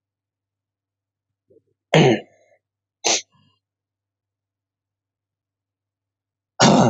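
A man clearing his throat and coughing in three short bursts, about two seconds in, a second later, and near the end, with near silence between.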